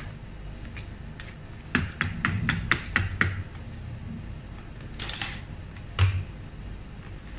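Kitchen handling sounds of a rubber spatula folding and scraping whipped cream in a plastic bowl: a quick run of light clicks about two seconds in, a brief soft rustle around five seconds and a single dull knock a second later.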